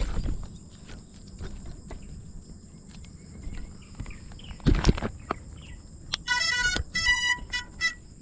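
A small FPV racing drone being handled on gravel, with knocks and scrapes, the loudest about five seconds in. A steady high insect trill from the grass runs throughout. About six seconds in comes a quick run of short electronic beeps, typical of a quadcopter's ESC or beeper during setup.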